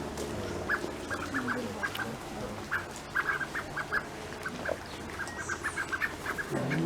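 Several small birds chirping around a bird feeding station, in quick runs of short, repeated chirps.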